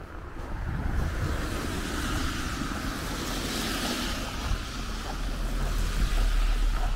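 Road traffic passing, a rushing swell of tyre noise that peaks around halfway through, over a low rumble that grows heavier near the end.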